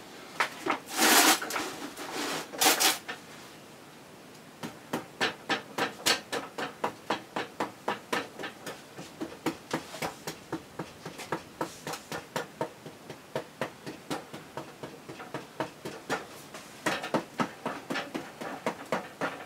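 Rubber mallet tapping the side of a stoneware bonsai pot with light, even knocks, about three a second, to settle the soil around the roots. Two louder scraping sounds come in the first few seconds.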